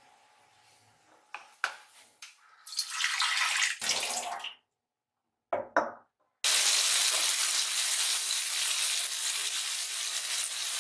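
A few clicks and clinks of a spoon on crockery, then, from about six seconds in, a steady loud sizzle as tauco (fermented soybeans) and chopped chili, shallot, garlic, tomato and lemongrass fry in hot oil in a wok.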